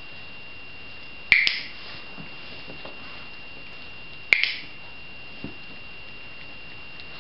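Dog-training clicker clicked twice, about three seconds apart, each a sharp double click of press and release, the marker signal telling the sheltie puppy it has earned a treat.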